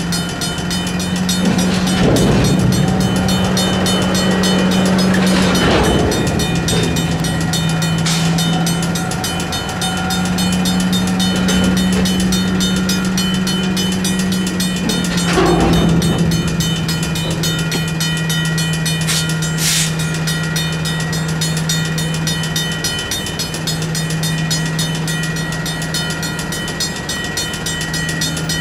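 Railroad grade-crossing warning bells ringing rapidly and steadily over the low, steady running of a train working through the crossing. The train noise swells a few times along the way.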